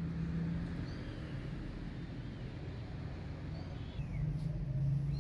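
Low, steady rumble of vehicle traffic, swelling a little about four seconds in, with a few short, high bird chirps now and then.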